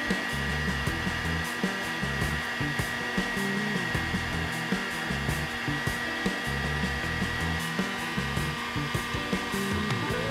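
Background music with a steady beat over the steady blowing whine of a heat gun.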